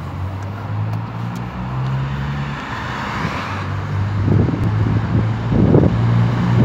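Road traffic on a busy city street: cars driving past, with a steady low engine hum under the noise of tyres.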